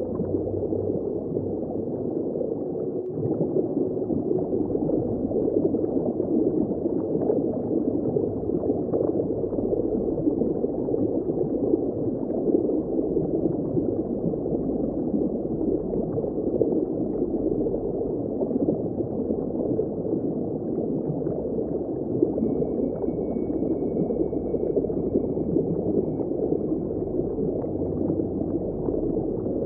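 Underwater ambience of surf churning over rocks: a steady, muffled rush of water with a fine crackle running through it, heard from below the surface.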